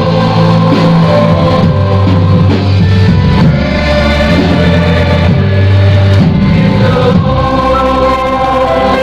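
Music with several voices singing together, choir-like, over sustained chords and a steady bass.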